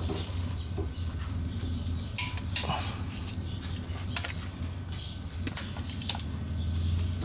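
Scattered light metallic clinks and clicks, like hand tools and parts being handled, over a steady low hum.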